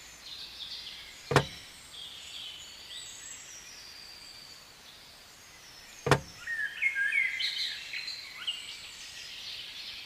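Birds chirping, with two single sharp knocks, one about a second and a half in and one about six seconds in.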